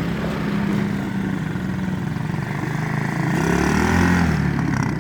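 Small ATV's engine running, revving up and back down about three and a half to four and a half seconds in.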